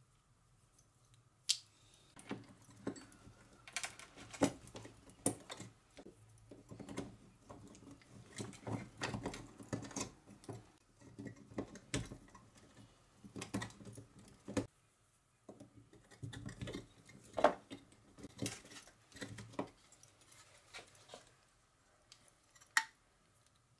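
Hands handling cylindrical lithium-ion cells and a plastic battery-pack cell holder: scattered clicks, taps and rustles as the cells are fitted into their slots. A few sharper clicks stand out, the loudest about two thirds of the way through and one near the end.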